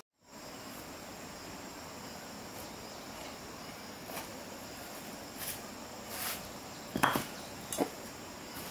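Steady chirring of insects, crickets among them, with a few scrapes and two sharp knocks, the louder about seven seconds in.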